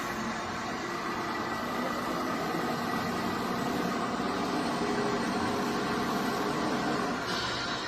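Radio-controlled scale construction machines running: a steady whine of small electric motors and gears, with a short hiss near the end.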